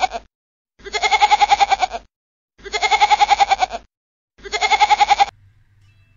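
Goat bleating: three wavering bleats of just over a second each, evenly spaced, after the tail of one more at the very start.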